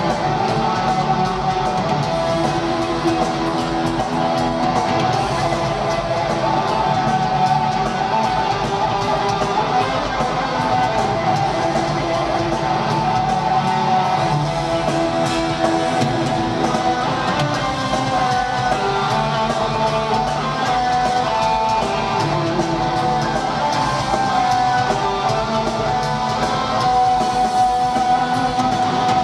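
Heavy metal band playing live in an arena, heard from the crowd: electric guitars carry sustained lead lines over bass and drum kit in an instrumental passage.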